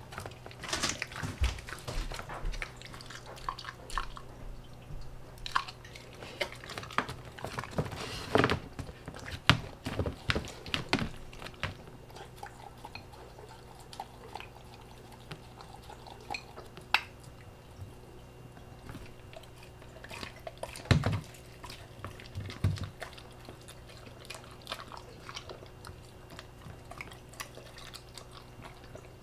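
A husky eating minced meat from a bowl on the floor: irregular wet chewing, smacking and licking, busiest in the first ten seconds or so, with a few louder knocks later, over a faint steady hum.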